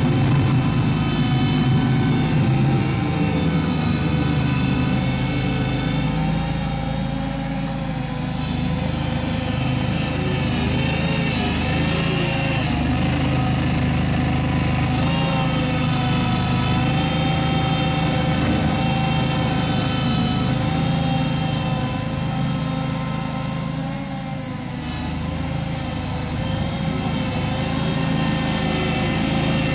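Small Kawasaki engine of a home-made wheel loader running steadily as the machine drives and pushes snow. Its note sags and recovers now and then with the changing load, with a short dip in loudness about three-quarters of the way through.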